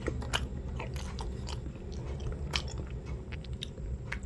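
Close-up chewing of soft bread, with many small mouth clicks scattered throughout.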